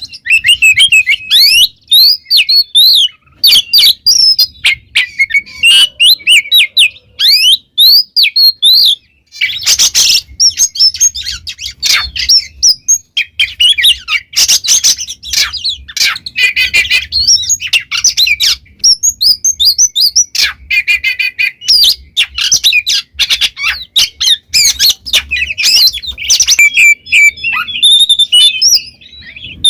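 Oriental magpie-robin (kacer) singing loudly and without pause: a fast run of varied whistles and chirps, with harsh scratchy notes breaking in several times.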